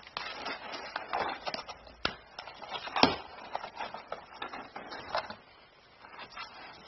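Cardboard box scratching and rustling as a cat rolls and paws about inside it, claws and body rubbing and knocking on the cardboard in irregular bursts. The loudest knock comes about three seconds in.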